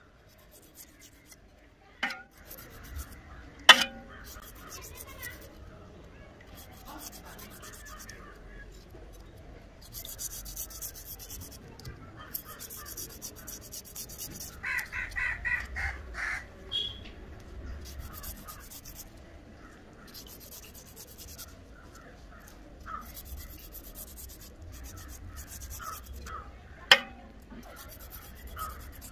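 A knife blade scraping the scales off a whole fish in repeated rasping strokes, with a few sharp knocks of the blade. A crow caws several times about halfway through.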